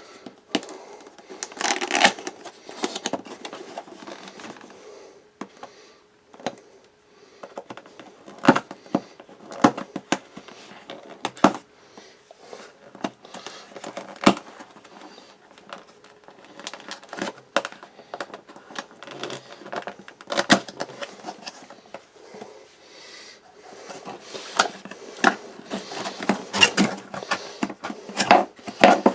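Packaging being opened by hand: irregular rustling and crinkling of cardboard and plastic, with scattered sharp clicks and knocks as the box and its contents are handled.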